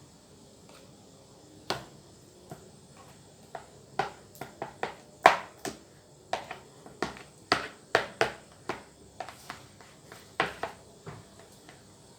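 Irregular clicks and knocks of kitchen utensils and containers being handled, sparse at first and coming thick and fast through the middle.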